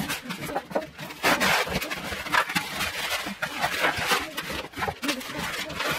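Cardboard appliance box being pulled and scraped away from a plastic-wrapped refrigerator, with irregular bursts of cardboard scraping and plastic rustling.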